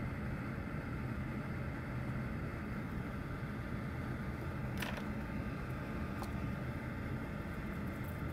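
Steady low background hum with two faint short ticks, about five and six seconds in.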